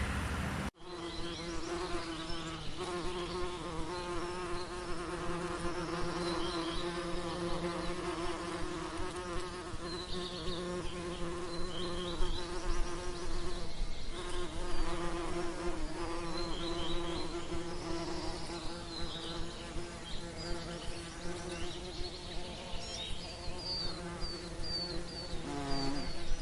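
Bees buzzing in a steady droning hum, with birds chirping in the background. The hum begins abruptly less than a second in, after a cut from a different sound.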